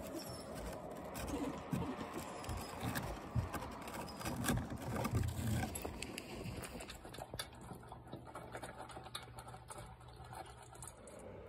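Irregular crunching and knocking of footsteps in packed snow on wooden steps, from a dog's paws and the walker's boots. The crunches are thickest in the first half and thin out and grow quieter after about seven seconds.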